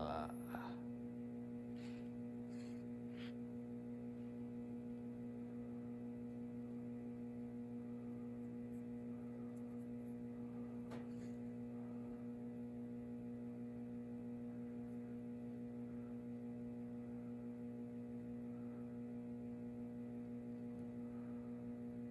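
Steady electrical mains hum with a few faint small clicks about two, three and eleven seconds in.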